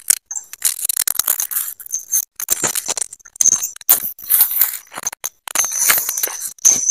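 Footsteps crunching on dry leaf litter and brush rustling and snapping as people push through dense forest undergrowth, in uneven bursts of crackling close to the microphone.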